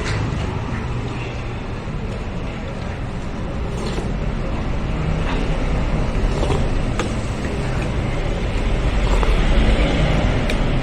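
Steady low background rumble, with a few faint clicks and taps.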